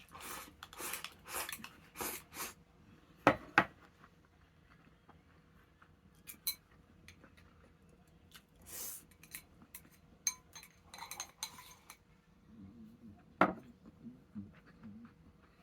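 Tableware clinking and scraping at a meal: dishes and eating utensils knocked together, with two sharp clinks about three seconds in and another near the end, between softer scrapes and rustles.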